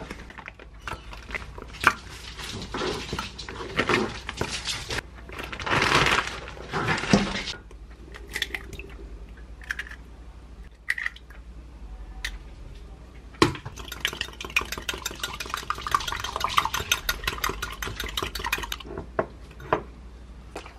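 Eggs cracked against a glass mug and beaten with a small wire whisk: about halfway through there is a sharp crack, then a fast, even run of clinks as the whisk strikes the glass for about five seconds. Earlier there are scattered handling and rustling noises.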